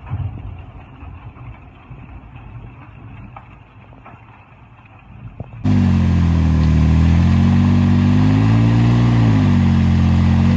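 Off-road Jeep's engine running hard under load as it crawls up a rocky ledge, starting abruptly a little over halfway through; its pitch rises and falls once near the end. Before it, quieter muffled noise with a few knocks.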